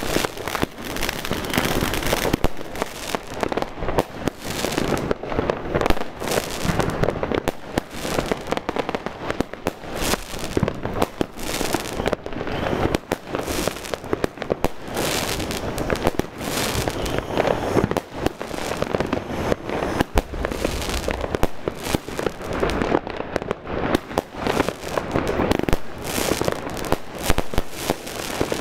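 Spring Wind 'Flowerbed' 100-shot fireworks cake firing shot after shot in quick, unbroken succession, each shot bursting into a shower of stars.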